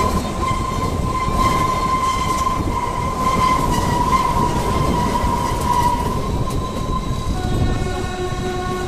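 Kalka–Shimla narrow-gauge toy train running with a steady rumble and a high, slightly wavering whine. About seven and a half seconds in, a steady horn starts sounding.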